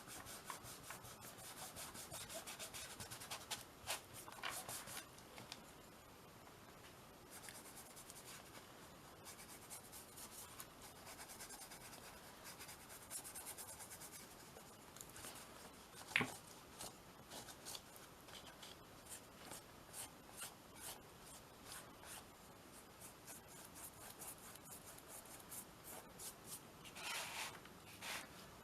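Soft brown chalk pastel rubbed across a gessoed canvas in short, faint, scratchy strokes, with a single sharp tap about sixteen seconds in.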